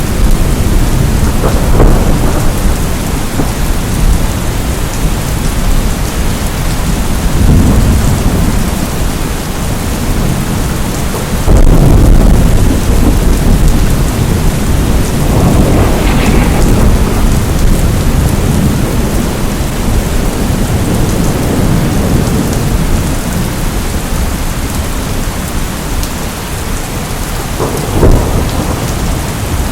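Steady heavy rain with thunder rumbling several times, the loudest rumble about twelve seconds in and a sharper clap near the end.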